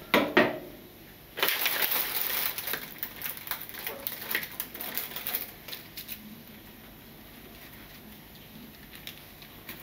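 A kitchen knife chops through the base of a shimeji mushroom cluster on a wooden cutting board, with two sharp knocks against the board right at the start. Then the cluster is pulled apart by hand: a dense crisp crackling for a second or so, followed by scattered light clicks that die away about halfway through.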